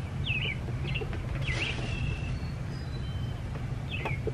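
Small songbirds chirping in short, quick notes, several in a row, over a steady low rumble.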